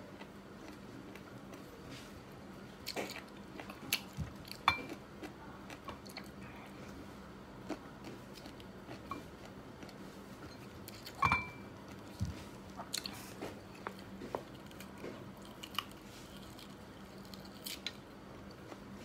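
A person biting and chewing crisp raw green slices close to the microphone: scattered crunches and mouth smacks, two of them louder, about a third of the way in and past the middle. A faint steady low hum lies under it.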